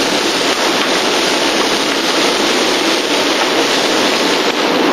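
Mixed seafood sizzling steadily in olive oil in a hot sauté pan, browning as it sears.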